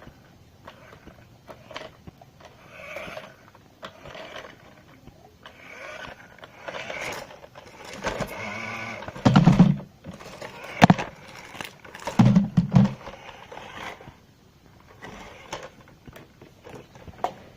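Small electric motor of a remote-control toy car whirring in short bursts, with scrapes and knocks as it runs into things; the loudest thumps come about halfway through.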